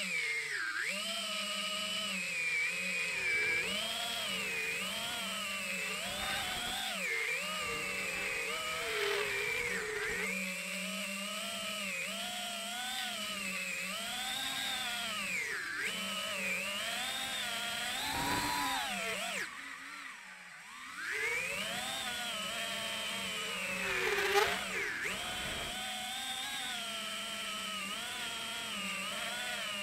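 FPV quadcopter's four iFlight 2207 2450kv brushless motors whining in flight, the pitch swooping up and down with the throttle. About two-thirds of the way through the motors drop back to a brief lull, then spool up again, with a sharp high burst of throttle a few seconds later.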